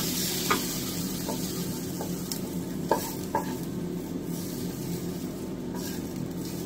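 Wooden spatula scraping and tapping a frying pan as cooked salmon and onion is scraped out into a bowl, with several short knocks in the first three and a half seconds over a steady low hum.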